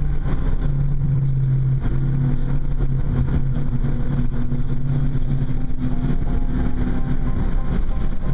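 Mazdaspeed3's turbocharged four-cylinder engine running under load at track speed, heard from inside the cabin, with a steady drone and road noise.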